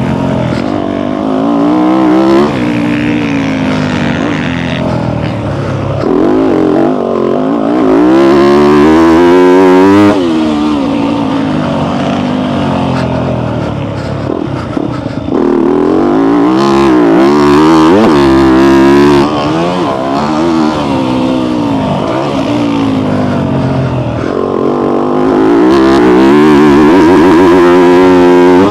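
Dirt bike engine, heard close up from a camera on the bike, revving hard and easing off again and again as the rider accelerates and backs off the throttle around a motocross track, its pitch climbing and dropping several times.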